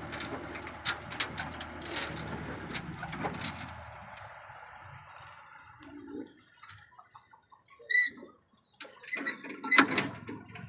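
Scattered knocks and rustling from a pickup truck loaded with cattle. A short high chirp comes about eight seconds in, and a quick burst of loud knocks near the end as the tailgate is handled.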